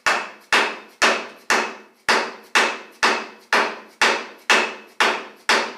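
Dead blow hammer tapping a 1955 Chevy rear axle into its housing, about two even strikes a second, each with a short metallic ring that fades, driving the axle bearing in until it bottoms out.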